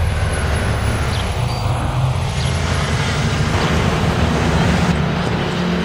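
City transit bus engine running as the bus pulls away, with a steady low hum over the surrounding street traffic.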